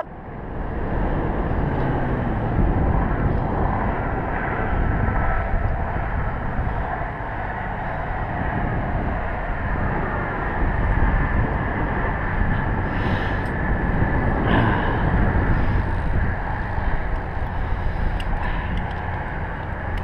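Wind buffeting the microphone of a camera mounted high on a steel tower, giving a steady, fluctuating rumble.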